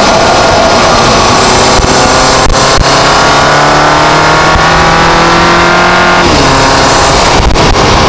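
Volkswagen GTI's turbocharged four-cylinder engine pulling under load through an APR Carbonio intake, its pitch climbing slowly with a thin, high turbo whistle above. About six seconds in, the revs drop suddenly and the whistle stops.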